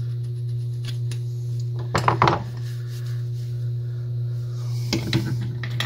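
Small metal parts of a vintage Great Lakes Holiday 98 spincast reel clinking and rattling as they are handled and fitted together, in two short clusters about two seconds in and near the end, over a steady low hum.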